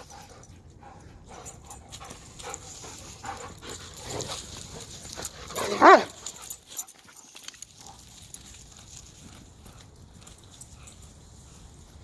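Dogs vocalizing during play: scattered small dog sounds, then one loud, short cry about six seconds in.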